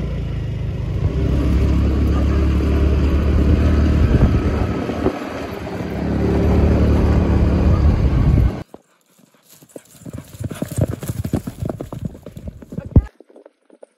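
A vehicle engine running steadily under heavy wind rush, which cuts off suddenly about two thirds of the way in. It gives way to the hooves of horses galloping on a dry dirt track, an uneven run of thuds with one sharp knock near the end.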